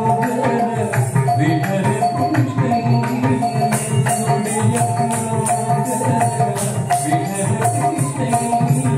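Carnatic music accompaniment for a Bharatanatyam dance: a held melody line over a fast run of drum strokes and bright metallic jingling, which grows denser about four seconds in.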